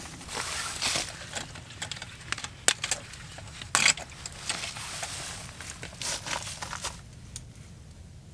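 Metal hurricane lantern being handled: a string of sharp clinks and clicks from its wire handle and frame, with soft rustling between. The loudest clicks come about three and four seconds in, and the sounds thin out after about seven seconds.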